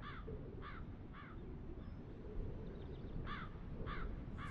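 A crow cawing in two sets of three short, harsh caws, the first set at the start and the second about three seconds in, over a low steady rumble.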